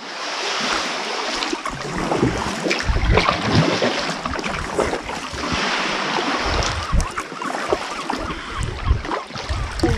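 Paddling an inflatable tandem kayak on calm sea: paddle blades dipping and water splashing and dripping around the boat. Irregular gusts of wind rumble on the microphone.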